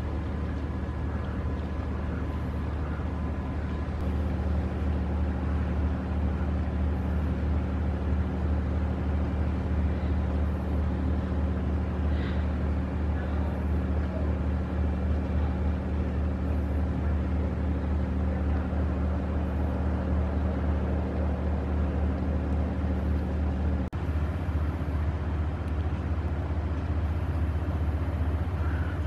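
Steady low drone of a diesel engine running, with a constant hum, from an inland cargo barge.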